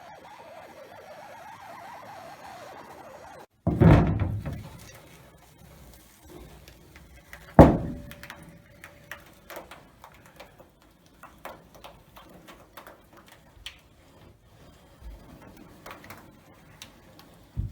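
A faint steady noise cuts off, then two heavy knocks on metal. The second leaves a brief ringing tone. Scattered light taps and clicks follow.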